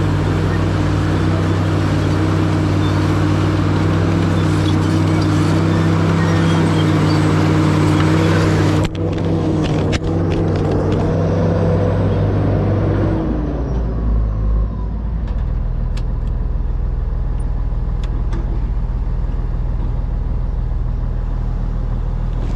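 Diesel engine of a heavy earthmoving machine running hard with a steady note. About thirteen seconds in it drops to a lower, quieter steady running note.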